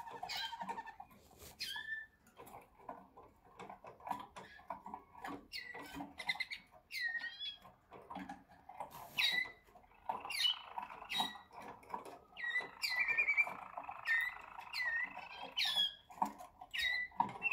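Malinois Waterslager canaries singing: short, sharp falling whistles about once a second over a lower, rapid rolling warble that grows louder about ten seconds in.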